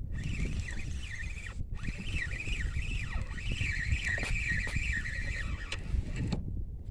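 Spinning fishing reel being cranked: a whirring whine that wavers up and down as the handle turns, over rumbling wind and handling on the microphone. It stops suddenly about six and a half seconds in.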